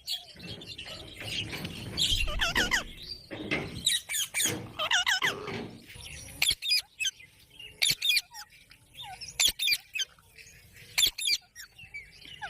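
Ringneck parakeet chirping and squawking in quick warbling calls that wobble up and down in pitch, with several sharp clicks among shorter calls in the second half.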